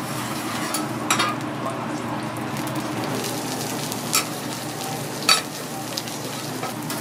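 Kobe beef steak sizzling steadily on a steel teppanyaki griddle as the steaming dome cover is lifted off. Three sharp metal clinks from the spatula and cover, about one, four and five seconds in.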